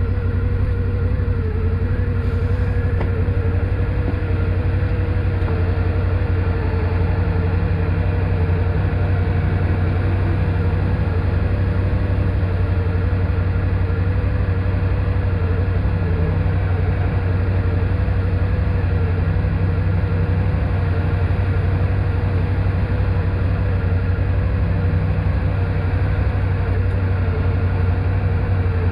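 ATV engine running steadily, a constant low drone with a slightly wavering higher whine over it.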